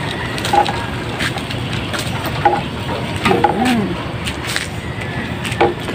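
Steady outdoor background noise with a few light clicks scattered through it, and one short spoken word about two thirds of the way in.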